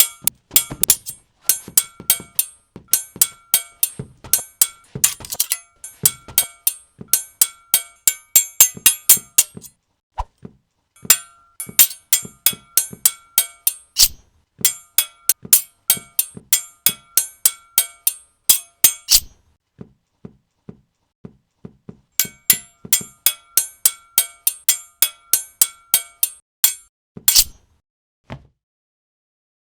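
Foley sword-fight clashes: rapid metallic clinks and clangs, several a second, each ringing briefly, in three long flurries with a short lull of faint taps between the last two.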